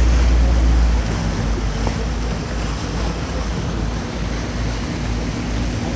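Venetian water taxi under way: its engine hums steadily under the rush of water along the hull, with wind buffeting the microphone that eases about a second in.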